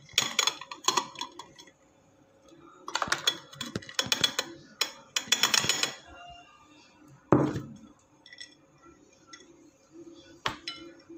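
Cashew nuts tipped off a ceramic plate into a steel mixer-grinder jar, in three bouts of rattling clinks as the nuts and the plate's edge knock against the steel. A single louder knock about seven seconds in and a sharp click near the end.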